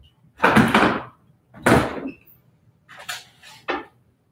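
Refrigerator door being opened and its contents handled: two loud clunks and rattles in the first two seconds, then a few softer knocks.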